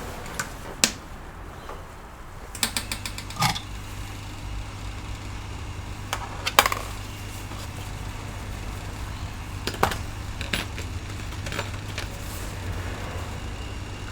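Scattered small metallic clicks and clinks of hand tools and tiny screws being worked on a laptop's underside, some in short rattling clusters, over a steady low hum.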